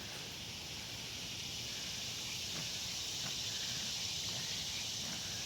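A steady, high-pitched chorus of summer insects, crickets or cicadas, droning without a break and swelling slightly midway.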